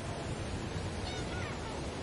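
Steady rush of Baltic Sea surf. About a second in, a faint bird call falls in pitch.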